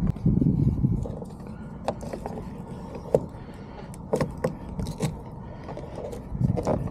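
Handling of truck door parts and hardware during reassembly: a string of sharp clicks and light taps, irregularly spaced.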